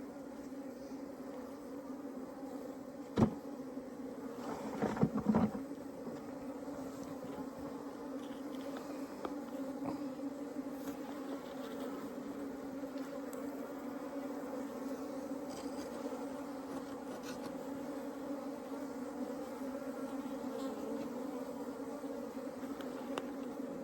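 Many honeybees buzzing in a steady, even hum. A sharp knock comes about three seconds in, and a few quick bumps follow around five seconds.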